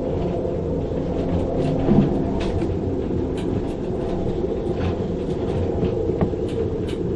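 Storm wind gusting over 35 knots through a sailboat's rigging: a steady low roar with faint howling tones above it, and scattered sharp ticks.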